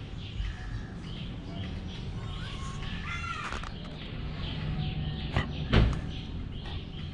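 A single short, harsh animal call about three seconds in, followed by two sharp knocks near the end.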